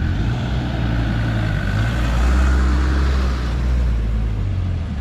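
Off-road 4x4 vehicle's engine running, its hum growing louder toward the middle and then easing off.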